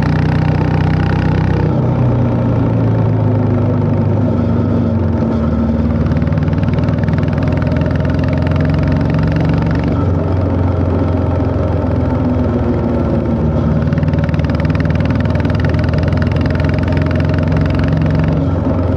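Honda CB350 H'ness's single-cylinder engine running steadily, its pitch shifting only slightly.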